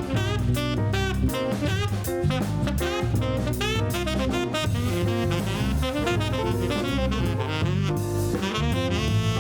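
Background jazz music with saxophone lead, bass and drum kit.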